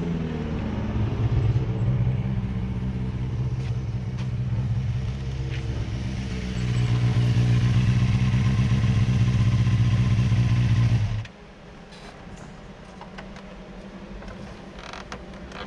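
1988 Yamaha FZR250's inline-four engine running at a steady pitch, growing louder about seven seconds in, then stopping abruptly about eleven seconds in. After it stops, quieter street background with a few faint clicks remains.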